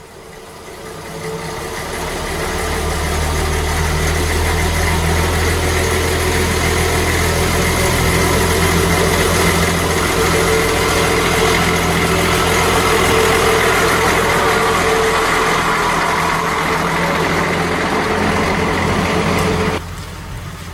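Class 810 railbus's diesel engine pulling away from a station, building up over the first couple of seconds and then running steadily with a low hum as the railcar approaches and passes close by. The sound cuts off suddenly about a second before the end.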